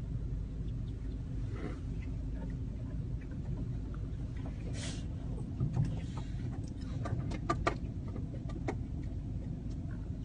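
Car engine idling, heard from inside the cabin as a steady low rumble. Over it come scattered sharp clicks and short calls from the flock of birds around the car, thickest in the second half.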